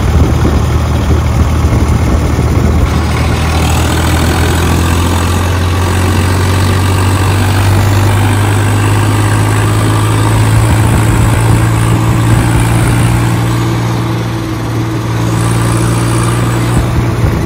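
Swaraj tractor's diesel engine running steadily at road speed, heard from the driver's seat, with a slight dip in level near the end.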